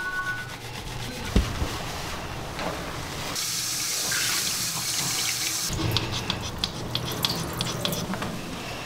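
Running water from a grooming tub's hand-held shower hose rinsing a small dog's wet coat. A louder spray hiss runs from about three and a half seconds to nearly six seconds in.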